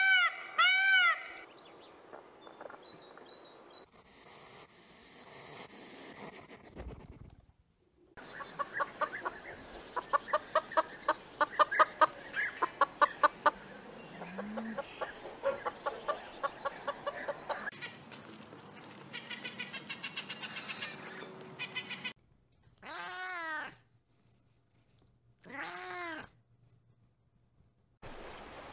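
Peacock giving a quick series of loud, arching cries at the start. Then a hen clucking in a long run of short, evenly spaced clucks. Near the end come two separate drawn-out calls.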